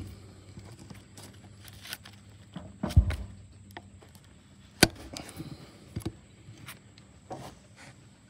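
Irregular knocks and clicks of steel pliers working at a piece of metal embedded in a sawn log, with a heavy thump about three seconds in and a sharp click just before five seconds.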